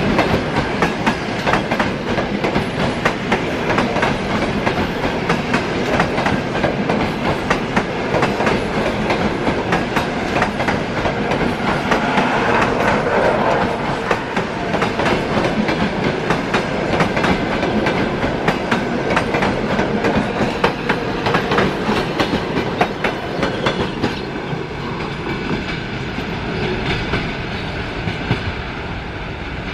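A train running past close by, its wheels clattering steadily over the rail joints; the sound eases somewhat near the end.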